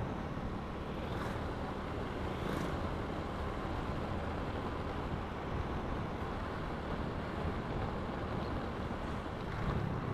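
Honda Vario 125 scooter's single-cylinder engine running steadily while riding at cruising speed, with wind rushing over the rider's camera microphone.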